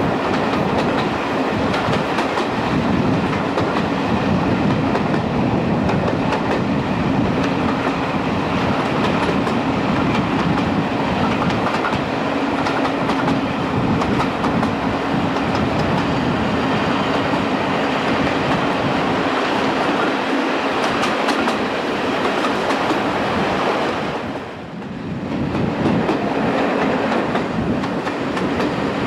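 Class 37 diesel locomotive's English Electric V12 engine working hard at the head of the train, a steady loud note heard from an open carriage window, with the carriage wheels clicking over the rail joints. The sound briefly drops in level near the end.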